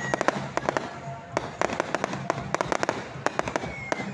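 Fireworks going off: a rapid run of sharp bangs and crackling pops, with a high whistle falling in pitch near the start and again near the end.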